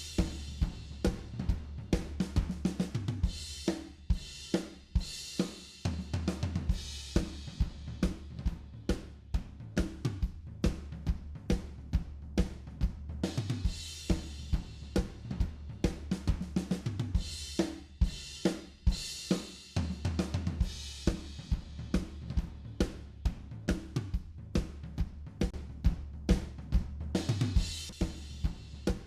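A recorded drum kit playing a fast, busy groove of kick, snare, hi-hat and cymbals over a bass line holding low notes that change every few seconds.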